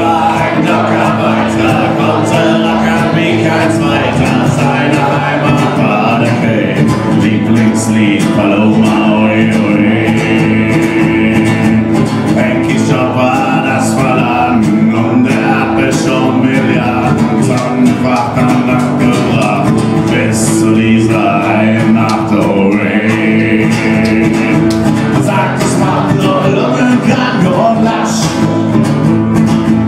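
Live acoustic guitar playing with a man singing at times.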